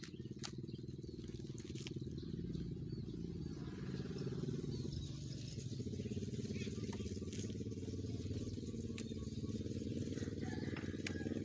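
An engine running steadily at a low, even pitch, with scattered light clicks and knocks.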